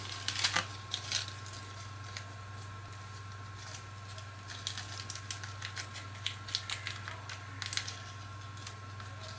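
Thin plastic packaging crinkling and rustling as it is handled: a small clear plastic bag is drawn out of a padded mailer and then opened, in short crackling bursts in the first second and a busier cluster from about four to eight seconds in. A steady low hum runs underneath.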